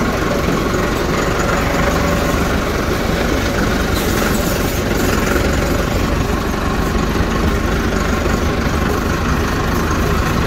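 Massey Ferguson 385 tractor's four-cylinder diesel engine running steadily as the tractor drives along, heard up close from the driver's seat.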